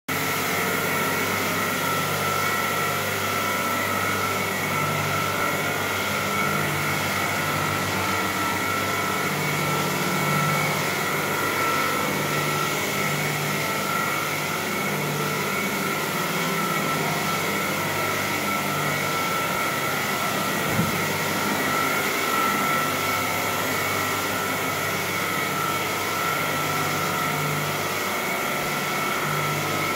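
Bona electric floor scrubber running steadily while washing a bamboo parquet floor: a motor whine with two high steady tones over a low hum that pulses unevenly.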